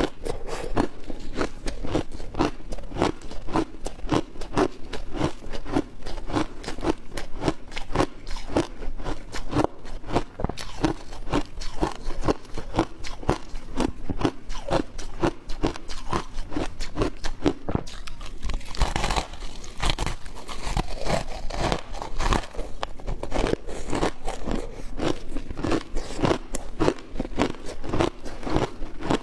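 Close-miked crunching of shaved ice being bitten and chewed, a steady run of crisp crunches several times a second. A stretch of denser crackling comes about two-thirds of the way through.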